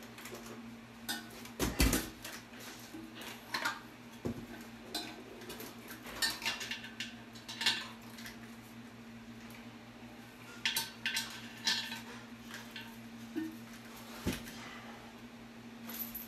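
Irregular clinks and knocks of a porcelain toilet tank and its metal bolts and washers being handled as the tank hardware is fitted, over a steady low hum.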